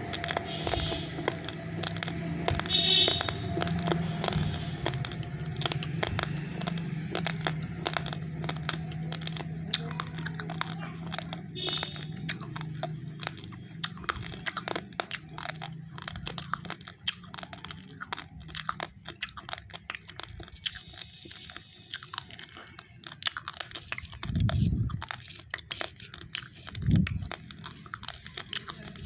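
Close-up crunching and chewing of raw, uncooked rice grains: dense, crackly crunches packed close together. A couple of low thumps come near the end.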